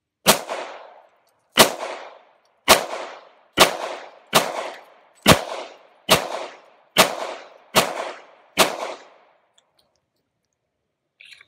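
Ten shots from a Glock 20 10mm pistol firing .40 S&W Blazer Brass, about one a second, each followed by a short echo. The pistol cycles every round with no failure to feed or eject.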